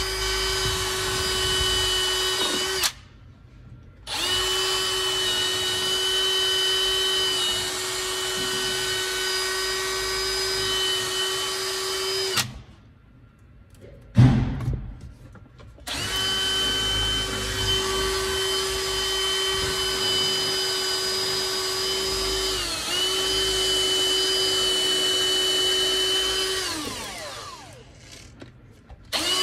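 A small handheld power tool's electric motor running at a steady high speed, switched off and on again twice. It dips briefly once and spins down with falling pitch near the end. A sharp knock comes in the middle, during one of the pauses.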